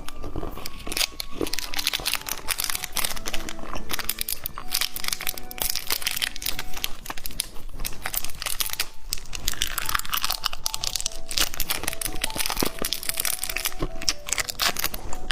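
Plastic candy packaging crinkling and tearing as it is handled and unwrapped close to the microphone, in dense, irregular crackles, with soft background music.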